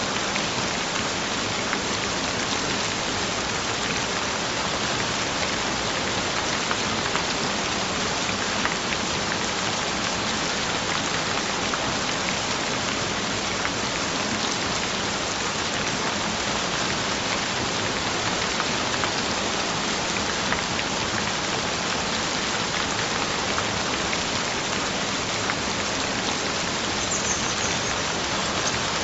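Steady rain falling on a surface, an even hiss with many small drop patters.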